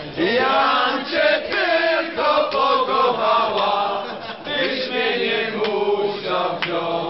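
A group of people singing together, several voices overlapping in a sustained sung chant.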